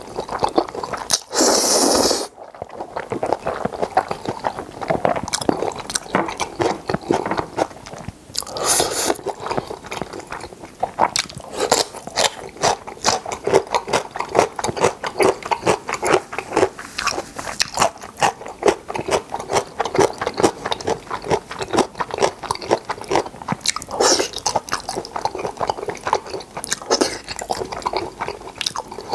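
Close-miked eating of seafood jjajang noodles: wet chewing with rapid lip smacks and clicks all through. Louder slurps of noodles come about a second in, again around eight to nine seconds, and near the end.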